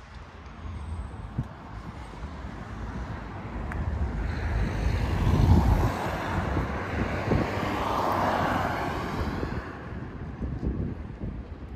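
A motor vehicle driving past on the road, its engine and tyre noise swelling about four seconds in and fading away again after about nine seconds. Low wind rumble on the microphone runs underneath.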